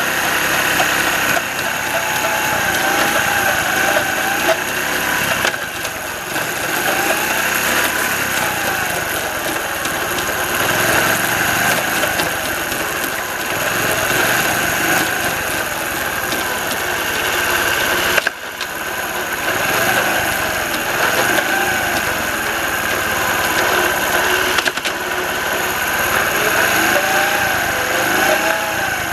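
Honda Little Cub's engine running in gear with the rear wheel turning, with a whining, grinding noise from the transmission that rises and falls in pitch every few seconds. The noise is the sign of a broken bearing supporting the transmission, which lets the countershaft wobble.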